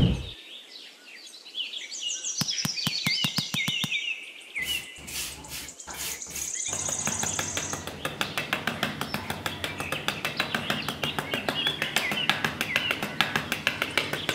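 Birds chirping, with a quick run of clicks a couple of seconds in, then a rapid steady ticking over a low hum from about seven seconds on.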